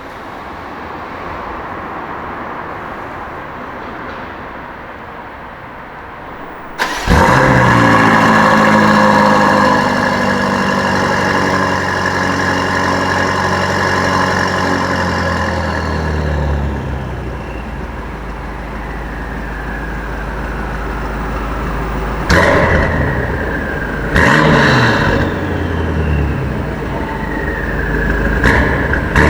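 BMW M5 F90's twin-turbo V8 starts about seven seconds in with a sudden loud flare. It holds a high idle, then settles over several seconds to a lower, quieter idle. Two short, sharp revs follow, each falling back, and the engine picks up again near the end.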